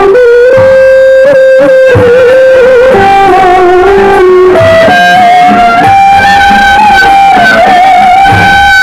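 Music: a melody of long held notes that slide from pitch to pitch, over a plucked-string accompaniment.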